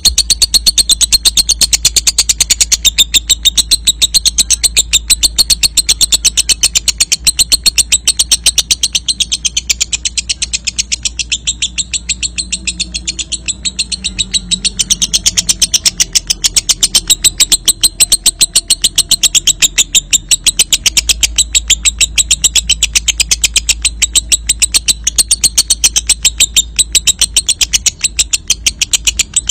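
Lovebird's long 'ngekek' song: a very rapid, unbroken high-pitched chattering trill, short notes following each other many times a second without a pause.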